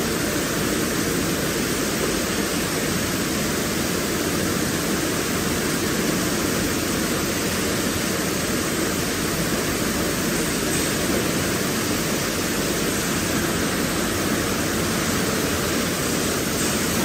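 Sleeve-labelling line with a steam shrink tunnel running: a steady, even rushing noise with no distinct rhythm or tone.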